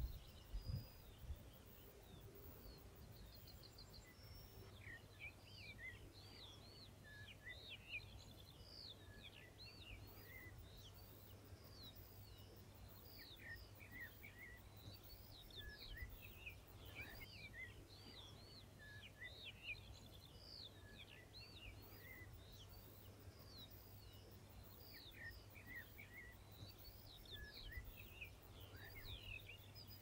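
Faint songbirds chirping: many short, high, quick notes, coming more often from a few seconds in, over a steady low hum. A short low thump right at the start.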